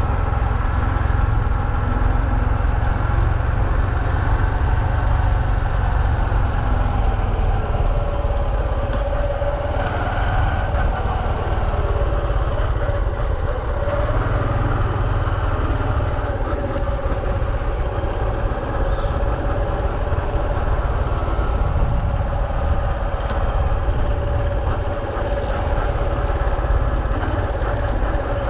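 Honda CT125 Hunter Cub's 125 cc single-cylinder four-stroke engine running steadily while the bike is ridden along a road, with heavy wind rumble on the microphone.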